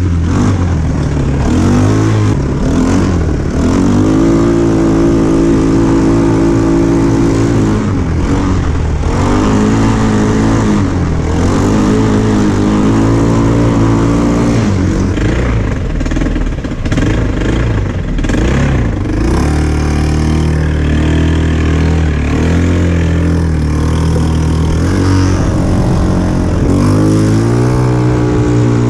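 A 150cc quad bike's engine and CVT variator running under load. The revs repeatedly rise and fall as the quad accelerates and eases off, with a climb in pitch near the end.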